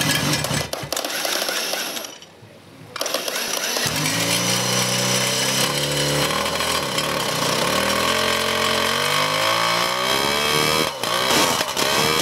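Fruin 200's four-cylinder 200cc two-stroke engine running. It drops away briefly about two seconds in, then picks up and is revved up and down, its pitch rising and falling repeatedly.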